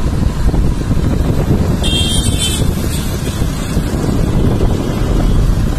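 Steady low rumble of wind buffeting the microphone and road noise from a moving vehicle, with a brief high-pitched sound about two seconds in.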